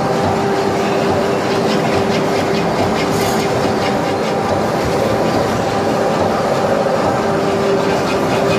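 HY-2700 automatic film-wrapping packing machine running: a steady hum under a fast, even mechanical clatter, with a short hiss about three seconds in.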